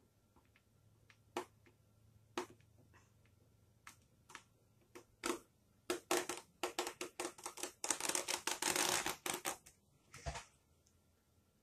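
Marker being traced along the edge of a plastic dehydrator tray over plastic craft canvas, its tip scratching and clicking across the plastic mesh. A few scattered clicks come first, then from about halfway a fast run of clicking and scratching that is loudest near the end.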